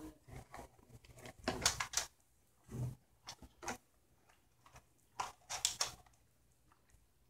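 Plastic clicks and clacks from a toy dart-blaster shotgun being worked by hand, in short clusters about one and a half, three and five and a half seconds in.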